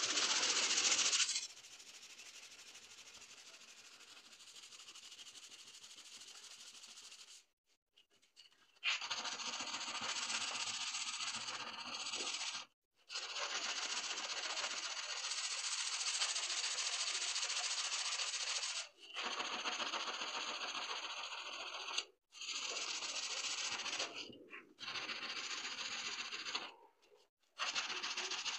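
Rusty steel handsaw blade being scrubbed by hand with an abrasive block and brush to clean off rust. It makes a dense scratchy scraping in runs of a few seconds, broken by several short silences.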